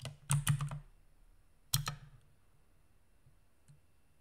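Computer keyboard keystrokes: a quick run of about five key presses in the first second, then a single press a little before the middle.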